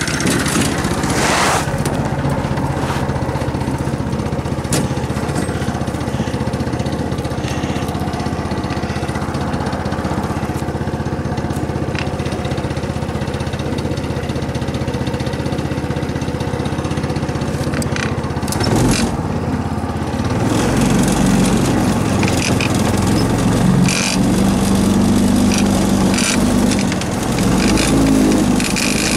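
Harbor Freight Greyhound small engine driving a Yerf Dog go kart under way. It runs steadily for most of the stretch, then gets louder and fuller from about twenty seconds in as it is given more throttle.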